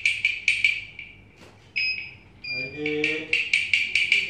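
Background music with a quick, clicky percussive beat of about four hits a second. The beat drops out for about a second in the middle, where two short high beeps sound before it resumes.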